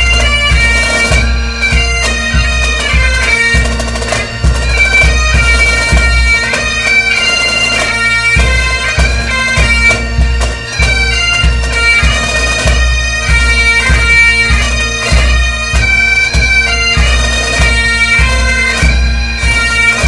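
Music: a high melody over steady drone notes, with a heavy, regular bass beat.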